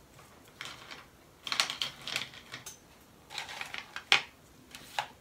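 Scattered light clicks and small rattling taps, a few quick clusters of them, with one sharper click about four seconds in, like small objects being handled on a work table.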